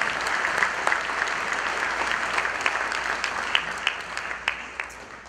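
Congregation applauding, the clapping thinning and dying away near the end.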